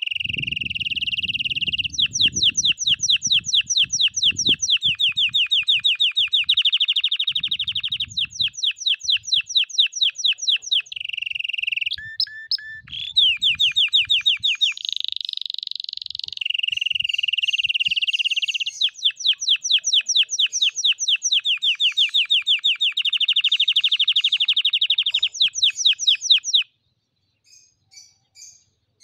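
Canary singing a long unbroken song: rolling trills of about ten notes a second alternate with held whistled notes, the phrase changing every second or two. It cuts off abruptly near the end, leaving a few faint chirps. This is the kind of tutor song played to young canaries to train them to sing.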